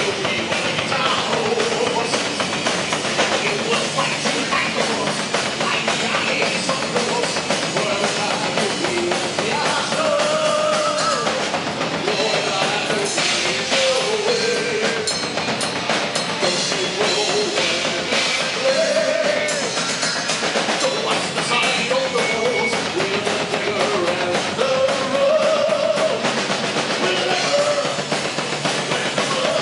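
Heavy metal band playing live: drum kit, electric guitar and bass guitar under a male lead vocal singing.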